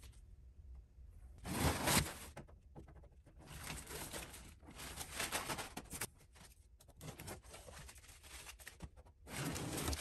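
Fine-line and masking tape being peeled off freshly sprayed car paint in a series of short pulls, the loudest about one and a half seconds in, as the flame artwork is unmasked.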